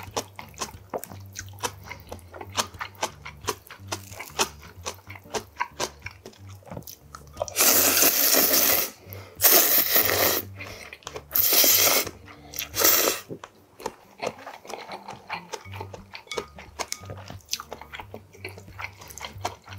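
Close-miked mouth sounds of a man eating tonkotsu ramen: wet chewing clicks, then four long, loud slurps of noodles starting about seven and a half seconds in, then more chewing.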